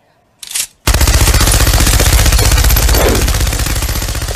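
Machine-gun sound effect: rapid automatic fire that starts about a second in and keeps going, slowly getting quieter.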